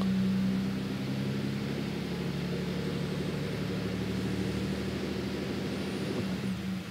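A Chevrolet Colorado's 3.6-litre V6 held at raised revs in gear against the brakes (power braking), loading the engine to bring out its intermittent bank 2 exhaust camshaft timing fault. It is a steady engine drone whose pitch drops away just before the end.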